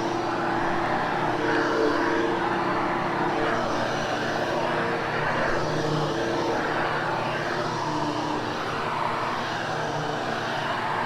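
Hoover HushTone upright vacuum running over carpet, a steady motor drone whose noise swells and eases every second or two as it grooms the pile.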